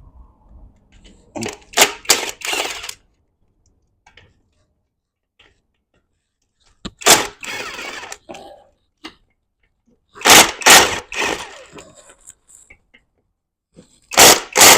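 Sharp clanks and knocks of metal tools and transmission parts being handled and set down on a bench, in clusters of two or three hits with quiet gaps between.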